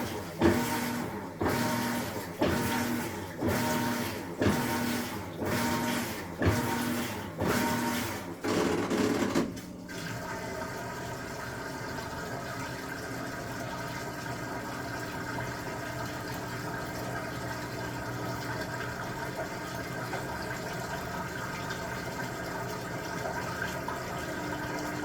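Maytag MVWP575GW top-load commercial washer agitating, its drive motor humming through strokes about once a second, which the owner considers normal. The strokes stop about ten seconds in and give way to a steady run of water with a motor hum.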